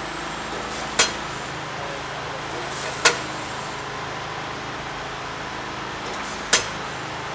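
Steady hum of a stuffed-animal filling machine running, with three sharp clicks: about a second in, about three seconds in, and near the end.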